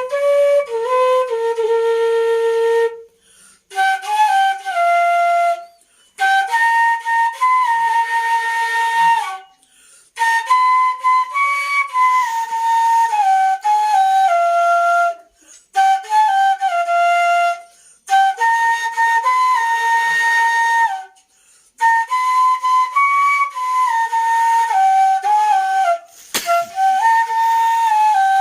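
Background music: a solo flute-like wind instrument playing a slow melody in phrases of a few seconds, each held note stepping up and down, with short breaks between phrases.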